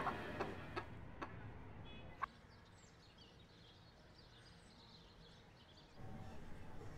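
Quiet room tone with faint, high bird chirps in the middle and a few light clicks near the start.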